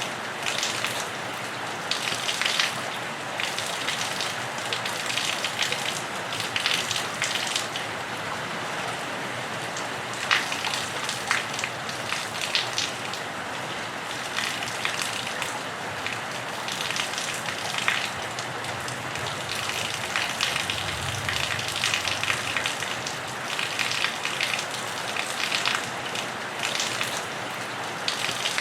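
Steady rain falling on a roof and running off it, with a dense irregular pattering of drops over the constant hiss.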